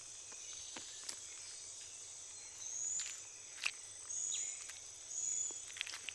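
Tropical forest ambience: a steady high-pitched insect drone, with three short high chirps in the second half and scattered clicks, one sharp click a little past the middle standing out.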